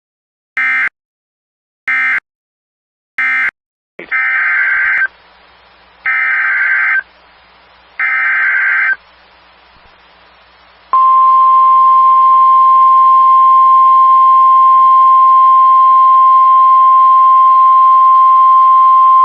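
NOAA Weather Radio alert signalling. First come three short data bursts, then three one-second SAME header bursts, then the steady 1050 Hz warning alarm tone for about nine seconds, which introduces a new severe thunderstorm warning.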